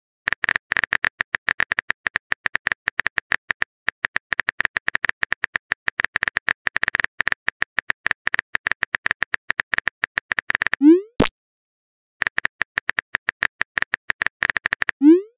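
Phone keyboard typing sound effect: rapid light key clicks, broken about eleven seconds in by a short rising whoosh ending in a click as a message is sent. The typing clicks resume, and a second send whoosh comes near the end.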